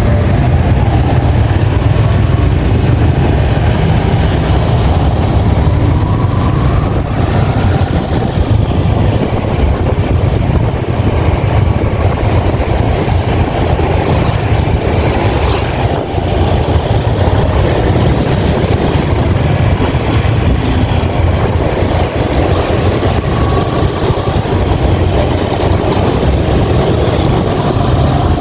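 Yamaha XSR 155's single-cylinder engine running steadily as the motorcycle is ridden.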